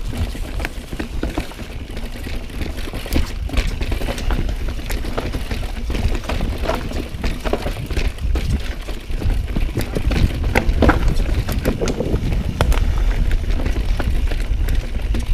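Pivot Firebird mountain bike rattling and clattering as it descends a rough downhill trail, with irregular sharp knocks from the wheels and frame over rocks and roots. A heavy wind rumble on the helmet camera's microphone underlies it and gets louder partway through.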